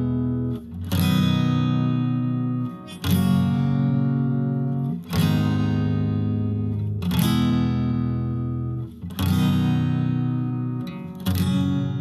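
Background music: acoustic guitar chords, a new strum about every two seconds, each left to ring out before the next.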